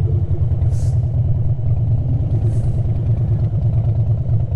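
Harley-Davidson Dyna's V-twin engine running as the motorcycle rides, a steady low, evenly pulsing throb.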